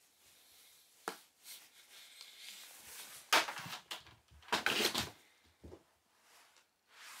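A cat scampering across carpet and around a cardboard cat tower: a run of short scuffles, rustles and light knocks, loudest about three to five seconds in.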